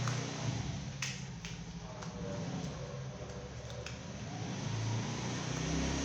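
A few sharp clicks from a parcel being opened and handled, over a steady low hum.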